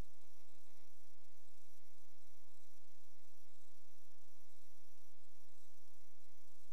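Steady electrical mains hum and buzz, a stack of even, unchanging tones over a faint hiss.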